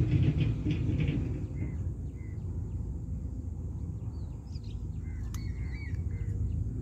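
Steady low outdoor rumble, with a few short bird chirps in the second half.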